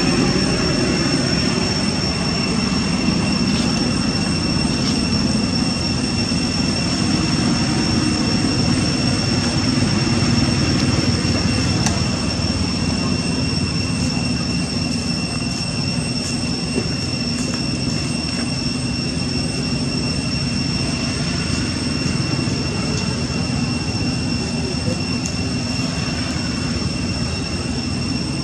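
Steady rushing background noise with a constant high-pitched whine over it.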